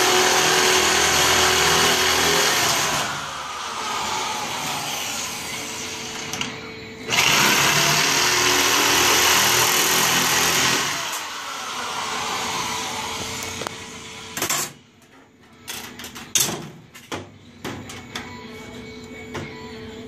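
Chicago Electric power shear slicing through galvanized sheet metal, its motor and cutting blades loudest in two runs of about four seconds, at the start and about seven seconds in, with a quieter stretch between. Near the end only scattered sharp metal clicks and clanks.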